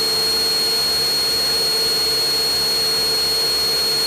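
Cessna 172 Skyhawk's piston engine and propeller at full power in the takeoff climb, a steady cabin drone with a thin constant high whine over it.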